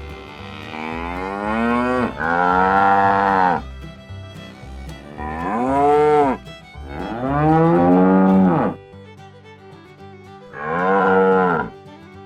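Cattle mooing: about four long, loud moos one after another, each rising and then falling in pitch.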